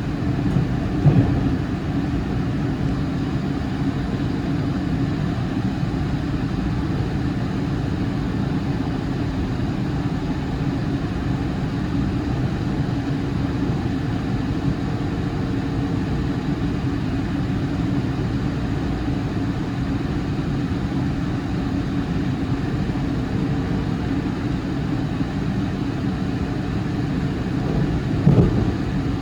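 Electric commuter train running, heard from inside the carriage: a steady low rumble of wheels on rail, with two brief louder thumps about a second in and near the end.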